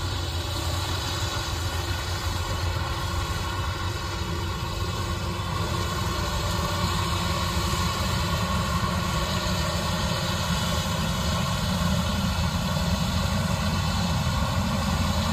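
Kubota DC-105X rice combine harvester running very loud as it cuts and threshes rice, its diesel engine and threshing machinery making a steady drone. The sound grows a little louder toward the end.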